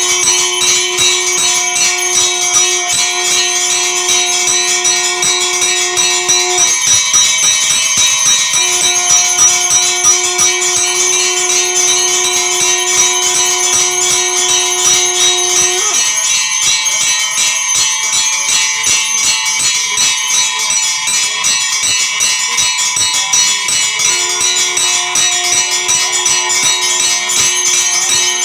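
Temple bells clanging rapidly and continuously during worship. A long, steady low note sounds for several seconds at a time, breaks off and comes back.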